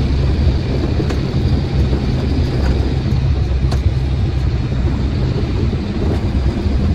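Truck engine and road noise heard from inside the cab while driving: a steady low rumble.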